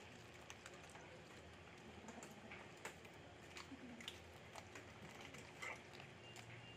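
Faint, irregular soft clicks and ticks of cats chewing raw fish and nudging plastic food trays, over low background noise.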